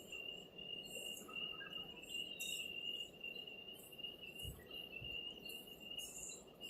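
Faint, steady high-pitched trilling of a cricket, with two soft low thuds about four and a half and five seconds in.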